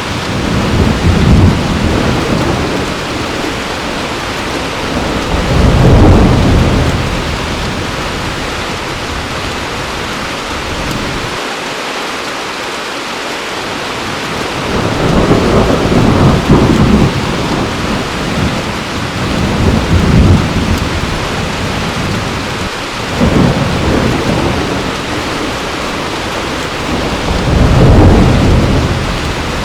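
Heavy rain falling steadily, with rolling thunder rumbling again and again: about six low rumbles that swell and fade over a few seconds each, the loudest about six seconds in and near the end.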